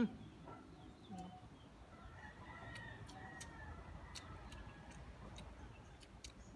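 A rooster crowing faintly, one drawn-out call from about two seconds in, with a few light clicks.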